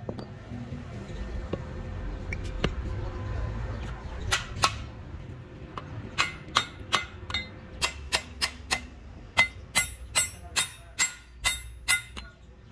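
Hand hammer striking the rivets on a steel truck brake shoe, setting the rivets that hold a new brake lining. A few light taps, then from about six seconds in a steady run of sharp, ringing metal blows, about two a second.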